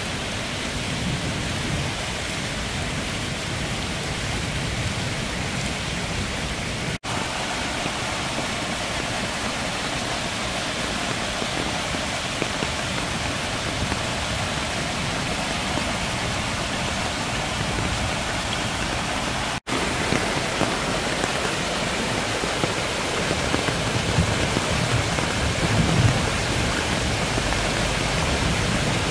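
Heavy rain shower falling on a small stream, mixed with the stream rushing over rocks: a steady, loud hiss of water. It breaks off for an instant twice, about 7 and 20 seconds in, and after the second break the rushing water is louder and deeper.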